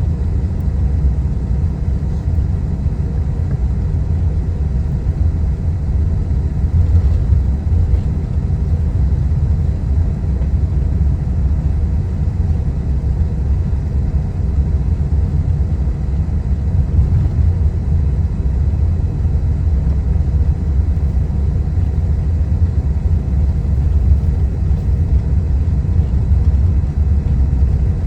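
Boeing 777 airliner taxiing: a steady, loud low rumble from its jet engines and rolling airframe, with faint steady tones above it.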